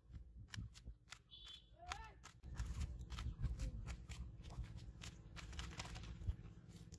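Irregular rustling and tapping on a woven plastic sack as a freshly caught small fish flaps and is handled on it, growing denser from about halfway through. A short rising call is heard about two seconds in.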